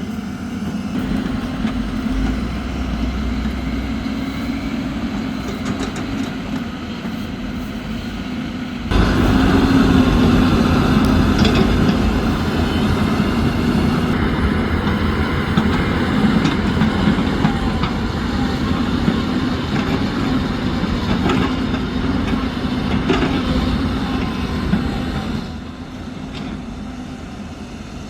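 A heavy machine's engine running steadily on a construction site. It grows clearly louder about nine seconds in and eases off near the end, with a few faint knocks.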